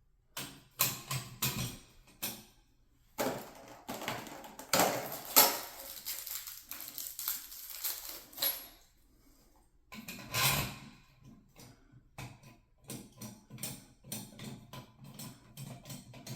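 Clicks, knocks and rustling of plastic shower-valve adapter parts being handled and snapped into place, with a quick run of small clicks near the end.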